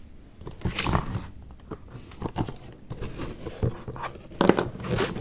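Things being handled and shifted about on a workbench: irregular rustling with light clicks and knocks, the loudest about a second in and again near the end.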